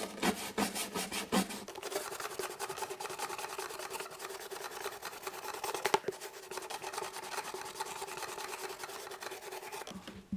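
Stiff-bristled scrub brush scrubbing a wet strip of car carpet in rapid back-and-forth strokes; the scrubbing stops shortly before the end.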